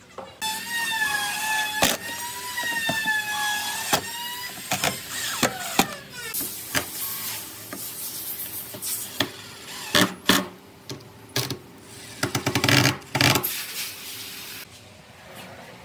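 Cordless impact driver driving screws into pine boards: the motor whines with a wavering pitch for the first few seconds, then gives a series of short rattling bursts of hammering as the screws are driven home.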